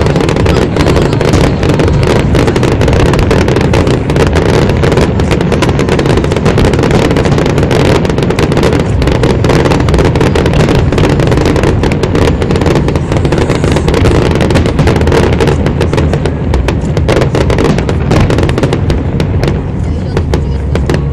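Aerial fireworks shells bursting in a dense, near-continuous barrage of bangs and crackles, easing off slightly near the end.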